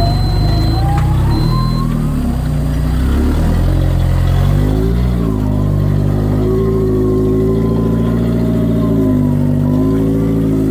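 Four-wheel drive's engine revving hard under load, the revs rising and falling several times as it tries to climb out of a hole on a greasy, slippery rock track.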